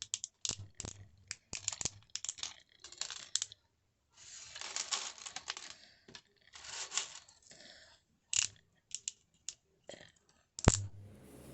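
A run of small sharp clicks and taps, with two longer rustling, tearing-like noises about four and seven seconds in.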